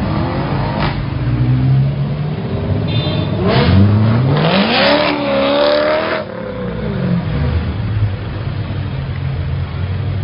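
Sports car engines idling with a low steady rumble. One car revs and accelerates about halfway through: its pitch climbs into a loud surge, then drops away as it eases off.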